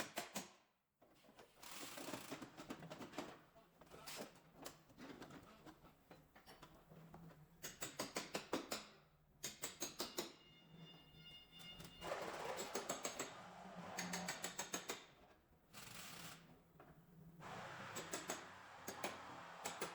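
Bursts of rapid mechanical clicking, several clicks a second, alternating with stretches of scraping or rustling noise.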